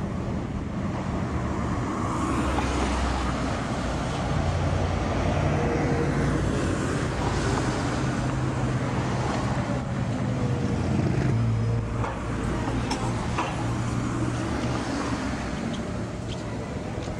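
Street traffic with car engines passing close and articulated trams running on street track. A faint falling whine comes about halfway through, and a few sharp clicks follow near the end as a tram rolls past close by.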